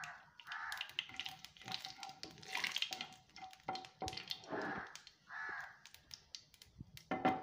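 Mustard and fennel seeds crackling and sizzling in hot oil in a pan, with scattered sharp pops, while a wooden spatula stirs them; a sharp knock near the end.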